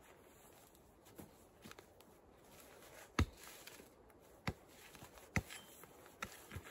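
Axe chopping at wood on the ground: a few sharp, separate blows starting about three seconds in, the first the loudest, with fainter knocks before them.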